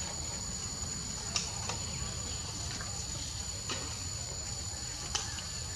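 Steady high-pitched insect chorus, with a few faint clicks scattered through it.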